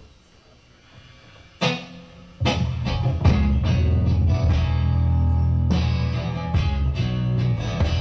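Live indie rock band with electric guitars, bass and drum kit starting a song. A single struck hit rings out about one and a half seconds in, and the full band comes in loudly about a second later.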